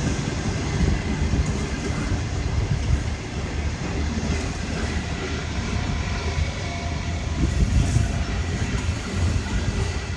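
The Overland's stainless-steel passenger carriages rolling past, with a steady rumble of wheels on the rails.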